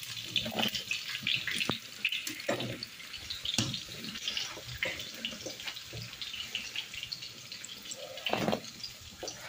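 Metal spoon stirring dumplings slowly through a pot of yogurt: liquid sloshing with irregular light clicks and scrapes of the spoon against the pot, and one louder stroke near the end.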